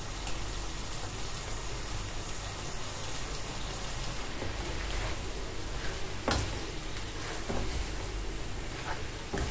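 Porcini mushrooms sizzling steadily in a frying pan while cooked ribbon pasta is tossed in with a wooden spatula and pasta server. A few sharp clicks of the utensils against the pan, the loudest about six seconds in.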